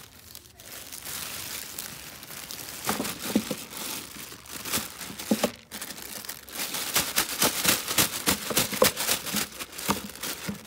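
Plastic bags crinkling and rustling as carrots are pulled from a carrot bag and laid in a feed trough, with a few short knocks along the way.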